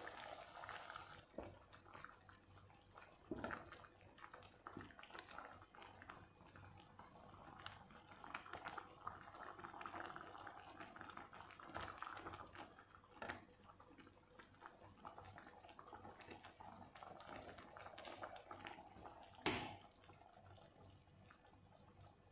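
Thick Japanese curry simmering in a pot, faintly bubbling and popping, with a wooden spatula stirring through it and scraping the pot. One sharper knock near the end.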